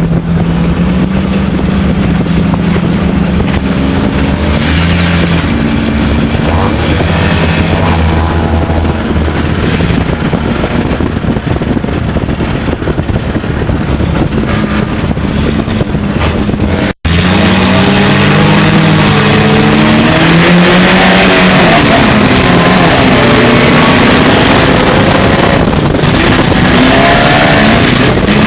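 Stinger dirt-track race car with an automatic transmission, heard from inside the cockpit, its engine running hard at racing speed with the pitch stepping up and down. About two-thirds of the way through the sound drops out for a moment, then comes back louder.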